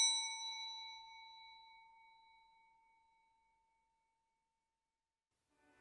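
A single bright metallic chime, like a struck bell, ringing and fading away over about two seconds, then near silence. Music fades in near the end.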